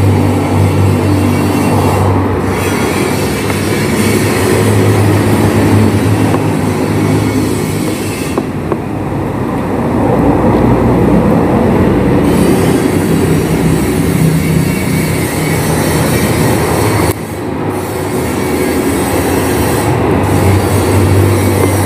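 Background music: a dark, droning track built on sustained low notes, thinning out for a few seconds about eight seconds in.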